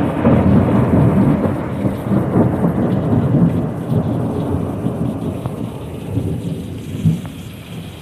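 Long rumble of thunder, slowly fading, with another swell about seven seconds in, over heavy rain pouring down.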